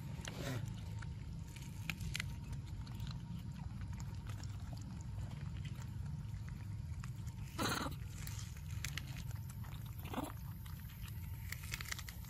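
Young macaques feeding at a corn cob, with a couple of short, sharp cries about eight and ten seconds in, over a steady low rumble.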